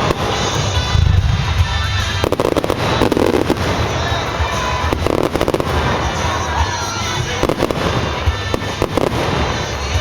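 Aerial fireworks display bursting one after another, with dense runs of sharp crackling and popping about two seconds in, around five seconds and again near the end.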